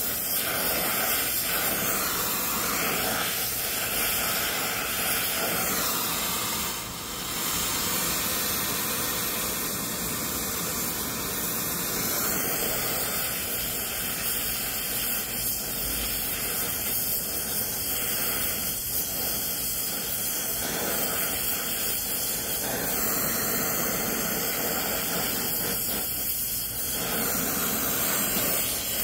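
Brazing torch flame hissing steadily on a copper pipe joint, dipping briefly about seven seconds in.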